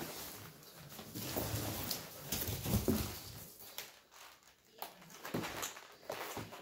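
Cardboard rustling and scraping, with a few light knocks, as a boxed model is pulled out of a shipping carton and set down on a glass tabletop.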